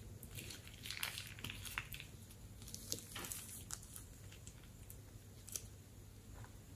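Glossy slime squishing and crackling under a finger and a plastic piping bag, with the bag's plastic crinkling: scattered sticky clicks and pops, thickest in the first few seconds and again about five and a half seconds in.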